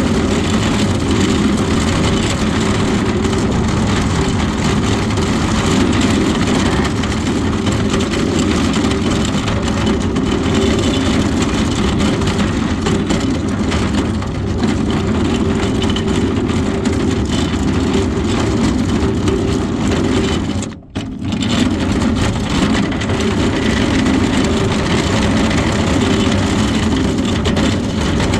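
Vehicle driving along: a steady road and engine rumble. It drops out for a split second about two-thirds of the way through.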